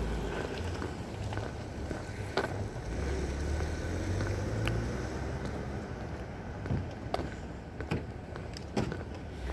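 Police SUVs driving slowly past close by: a steady low engine and tyre rumble, with a few short sharp clicks.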